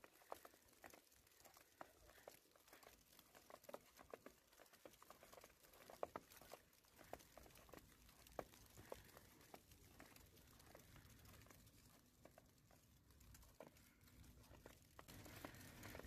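Near silence, with faint, irregular soft ticks and crackles scattered throughout.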